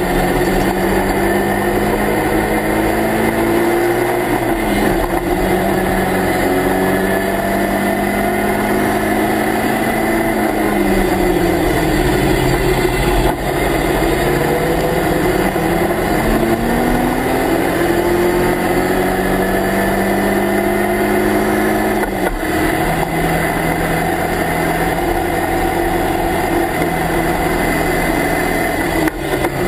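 Locost Lotus Seven-replica race car's engine at racing revs, heard from the open cockpit: the note climbs under throttle and falls off, with sudden drops at gear changes, one sharp drop about two-thirds of the way through.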